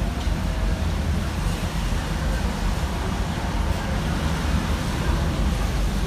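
Strong typhoon wind rushing through a partly open window, a steady low rumble with no let-up.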